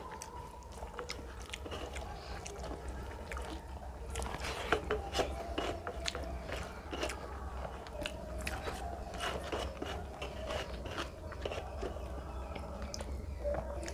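Close-up eating sounds: chewing with wet mouth clicks, and fingers squishing rice and fish curry together and scraping across a metal plate. It comes as a string of small, sharp, irregular clicks over a low steady hum.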